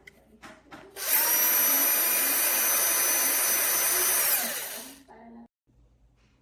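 DEKOPRO 12 V cordless drill/driver running at a steady speed for about three and a half seconds, a motor hum with a high whine over it. Then the trigger is released and the whine falls away as the chuck spins down.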